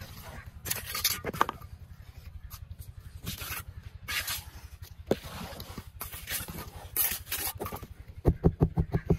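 Steel trowel and wooden float scraping and smoothing wet cement mortar in a metal mould, in a series of separate strokes. Near the end comes a fast run of about eight loud knocks.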